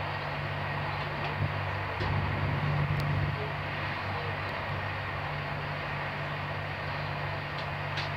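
Steady rumble and wheel-on-rail noise inside a Corail passenger coach running at speed, swelling a little for about a second partway through.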